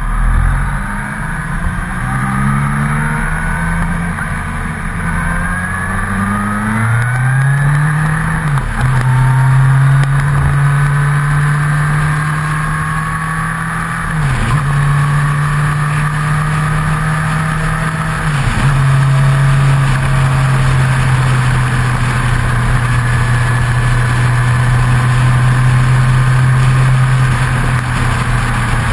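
Motorcycle engine heard close up from a fairing-mounted camera, pulling away and accelerating up through several gears in the first nine seconds or so, then cruising at a steady pitch with two brief dips in revs, about 14 and 18 seconds in. Wind and road noise run under it throughout.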